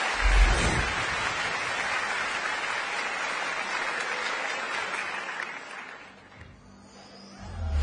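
Studio audience applauding, fading out about six seconds in. A short low boom sounds just after the start, and another comes up at the very end.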